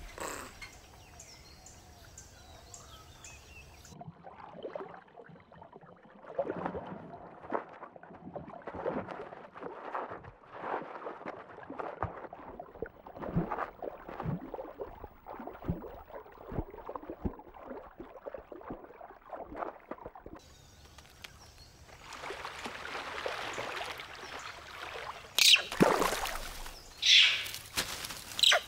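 Water splashing and sloshing in irregular bursts, then a rushing wash of water, ending with several loud shrill animal calls about three seconds before the end.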